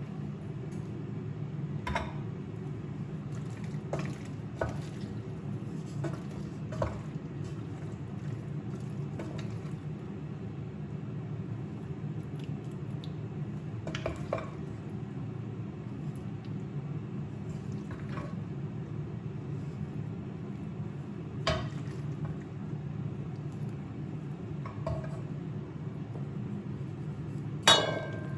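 Kitchen work sounds: dishes, glass and cutlery clinking and knocking now and then over a steady low rushing hum.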